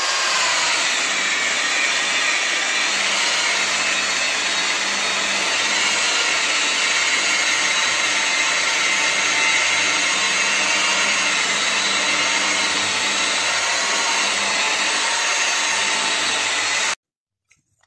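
Electric car polisher running steadily, its foam polishing pad buffing wax off a painted metal cabinet door. It stops abruptly about a second before the end.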